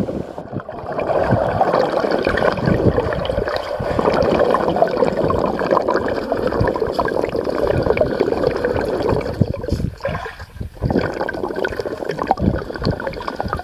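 Water heard from under the surface of a swimming pool through a waterproof action camera's microphone: a steady, muffled gurgling and rushing, dipping briefly about ten seconds in.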